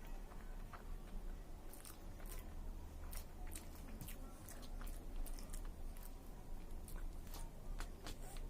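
A person chewing and biting a big mouthful of chicken biryani close to the microphone, with irregular wet clicks and small crunches.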